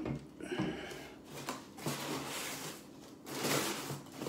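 Rummaging in a cardboard box of beer cans: irregular rustling and scraping of cardboard, the loudest about three and a half seconds in, with a sharp knock right at the start.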